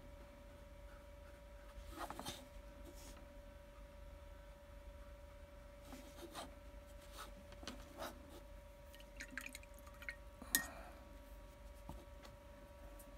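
Quiet room with a steady faint hum, broken by scattered light clicks and taps as a paintbrush and paint tube are handled on a countertop; the sharpest click comes about ten seconds in.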